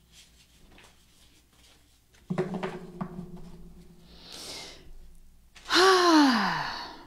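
A woman takes a breath, then lets out a loud, breathy sigh about six seconds in, its pitch falling steadily. A few soft knocks come a couple of seconds earlier.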